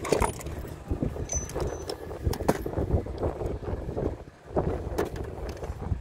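Irregular light knocks, clicks and rattles of handling, over an uneven low rumble.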